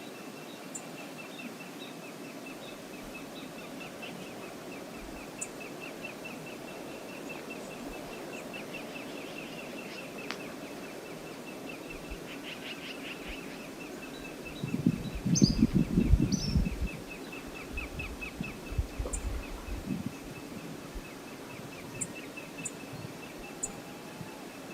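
Steady rush of river water with a fast, repeated bird chirping and a few short high calls. About fifteen seconds in, a loud low rumble lasts a couple of seconds, like wind buffeting the microphone, with smaller bumps after it.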